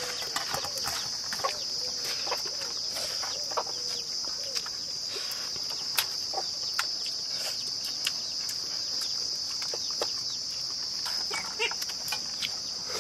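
Steady high-pitched chorus of crickets, with scattered small clicks and clinks of fingers and rice against steel plates during eating by hand.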